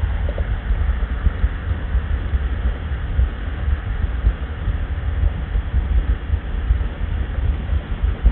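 Steady wind rush and low rumble of riding a motorcycle at highway speed, heard through a Sena Bluetooth headset microphone in the helmet, which makes it sound narrow, like a phone line.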